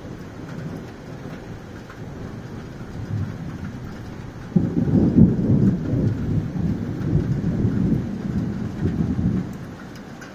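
Thunder rumbling low and building, then jumping suddenly louder about halfway through into a heavy rolling rumble that lasts about five seconds before dying away near the end.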